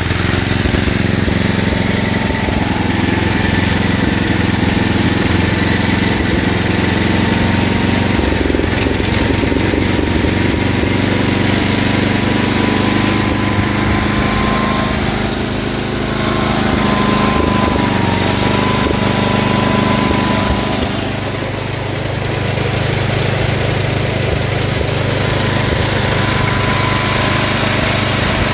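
The Briggs & Stratton engine of a 1960s Montgomery Ward Squire Garden Mark lawn tractor running steadily, its first run after sitting unused for a year. It gets a little quieter twice in the second half.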